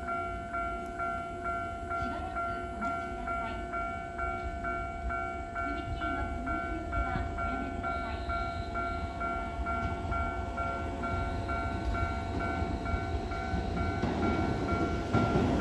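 Japanese railway level-crossing alarm sounding its fast, evenly repeating two-tone ding. Near the end, the low rumble of an approaching Keisei 3700 series electric train grows louder.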